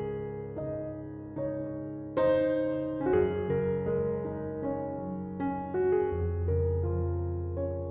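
Background piano music: gentle chords and melody notes that ring and fade, with a louder chord about two seconds in.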